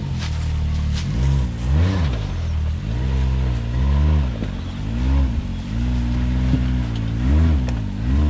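Side-by-side UTV engine revving up and dropping back again and again, about once a second, as it is worked over rocks.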